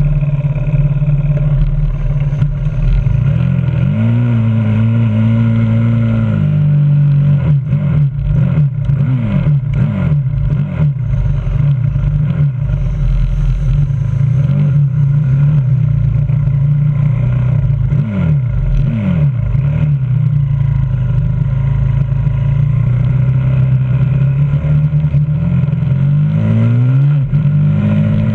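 Close-up running of a 125cc supermoto pit bike's single-cylinder four-stroke engine at low revs. Its pitch lifts and falls in a string of short throttle blips, and the revs climb near the end as the bike pulls onto the track.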